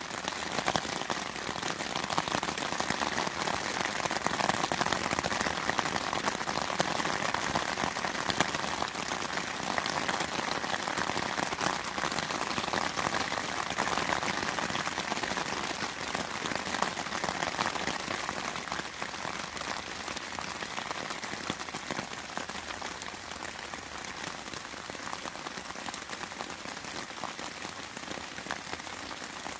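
Steady rain falling, a dense patter of drops that eases slightly about two-thirds of the way through.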